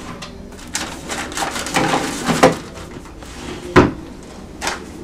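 Wooden drawers of a chest of drawers being pulled open and rummaged through, with a stretch of rattling and clattering. A sharp knock comes a little under four seconds in as a drawer is pushed shut, and a lighter knock follows near the end.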